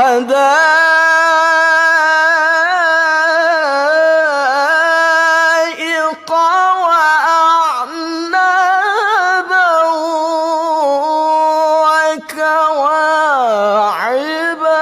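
A solo voice reciting the Quran in melodic murottal style, unaccompanied. It draws out long held notes with ornamented turns in pitch, breaks off briefly twice, and glides down in pitch near the end.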